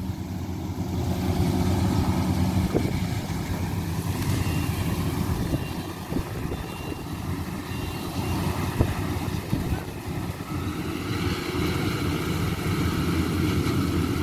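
Rice combine harvester running steadily as it cuts through the field, a continuous engine drone with a few faint knocks; its tone shifts a little higher about ten seconds in.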